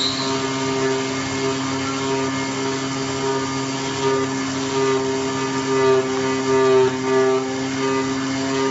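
CNC flatbed cutting plotter running as its tool head traces a cut through honeycomb cardboard: a steady hum with a whine whose pitch keeps shifting as the head moves.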